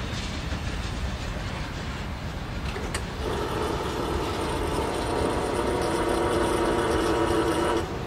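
CSX freight train rolling over the tracks. From about three seconds in, a long steady blast of the locomotive's air horn sounds over it and cuts off just before the end.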